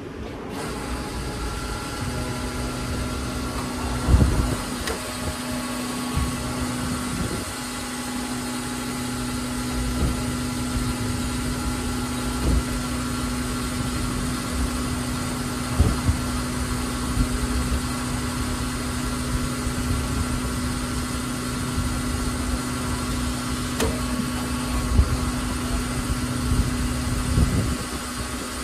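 Bus engine running steadily with a low rumble and a constant hum, broken by a few short knocks.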